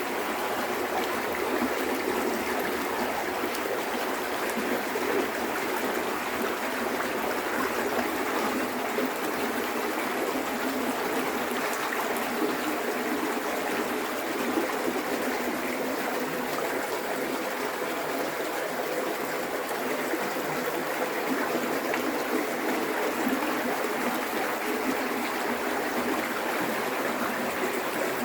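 River water rushing and splashing over rocks, a steady even noise that does not change.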